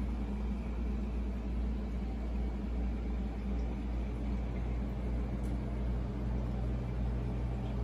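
Aquarium filtration running: a steady low hum with an even hiss, from the tank's FX6 canister filter, hang-on-back filter and wavemakers.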